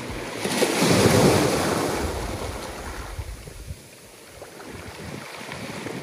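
Small waves breaking and washing up over a beach of rounded cobblestones. The wash swells about a second in and fades away, then the next wave builds near the end.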